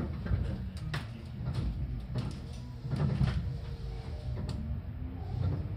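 Seibu 4000 series electric train heard from inside the car: a steady running rumble with scattered clicks and rattles. Near the end a motor hum rises slowly in pitch.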